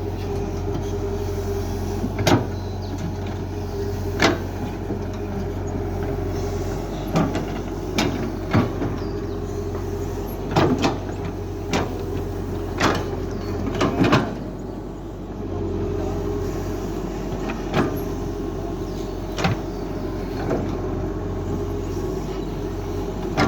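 Excavator's diesel engine running steadily, with about a dozen sharp knocks at irregular intervals as it works; the engine briefly drops in level about halfway through.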